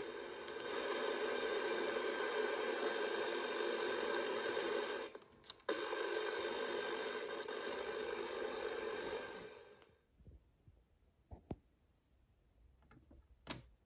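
Hiss of untuned TV static from the small speaker of a Broun mini black-and-white TV, with the volume raised. The hiss cuts out briefly about five seconds in and fades away after about nine seconds as the volume slider is turned down, leaving a few light clicks from handling the set.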